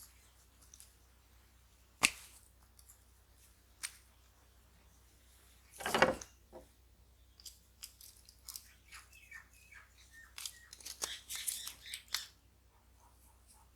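Small close-up handling noises of work on a small object: a sharp click about two seconds in, a louder short rasp around six seconds, then a run of small clicks and scratches.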